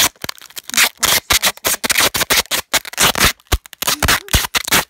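Clear sticky tape being pulled off the roll and wound around an iPod: a quick, uneven run of short, loud ripping and crackling noises close to the microphone.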